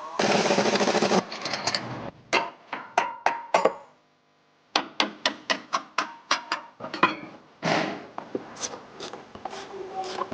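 Hand-tool work on a car's shock absorber top mount: a dense rattling burst lasting about a second, then a long string of sharp clicks and knocks.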